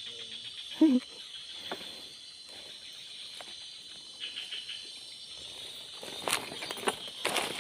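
Night-time insect chorus, a steady high buzzing and chirring, with a brief low call about a second in. Near the end comes a run of rustling through leaves and undergrowth.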